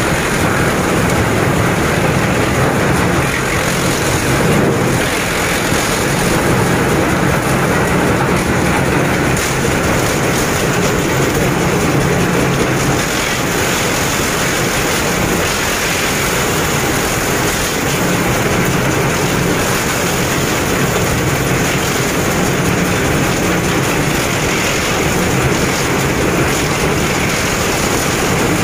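Industrial wood crusher running, shredding scrap wood planks into sawdust: a loud, steady grinding noise with a low hum underneath that does not let up.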